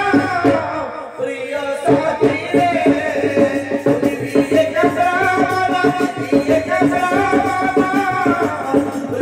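Live Odia folk music for danda nacha: a two-headed barrel drum (dhol) beaten with a stick in a steady rhythm under a voice singing a melody.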